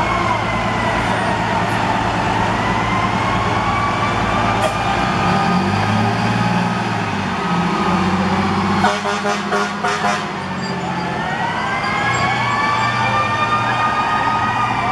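Fire truck sirens wailing in slow rising and falling sweeps, several overlapping, over the low running of the truck's engine. In the middle, about a second and a half of rapid pulsing horn blasts.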